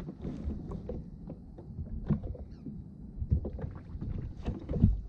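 Sea water lapping and slapping against a kayak's hull, with irregular low knocks, the heaviest about two seconds in and near the end.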